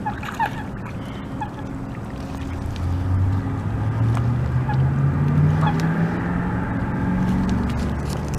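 A motor vehicle's engine running, its pitch climbing steadily and getting louder for several seconds from about three seconds in as it accelerates. Near the start there are a couple of short faint calls.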